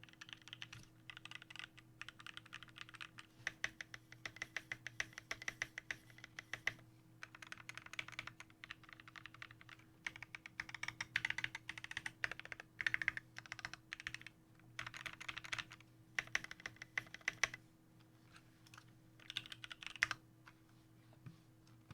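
Typing on a custom 60% mechanical keyboard with lubed and filmed Alpaca linear switches, a carbon fibre plate and an acrylic case. Quick runs of keystrokes come with short pauses between them, and a few strokes stand out louder.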